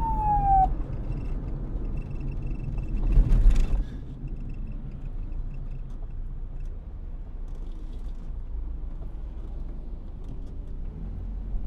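A police siren's wail sliding down in pitch and cutting off less than a second in. It leaves a steady low vehicle rumble, with a louder rush at about three seconds.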